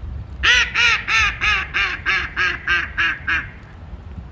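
Hen mallard giving her decrescendo call: about ten quacks in quick succession, roughly three a second, the first loudest and each one a little lower and softer than the last.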